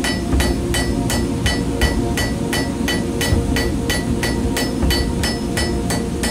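Hand hammer striking red-hot steel on an anvil, a fire steel being forged: about three even blows a second, each with a short, high ring from the anvil.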